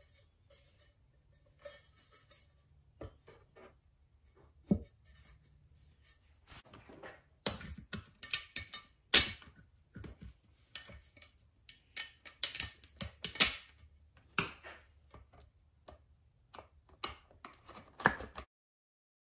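Hi-Blow septic air pump's cover being fitted back on by hand: irregular clicks, knocks and scrapes of the plastic and metal housing parts, few at first and busier in the second half, cutting off just before the end.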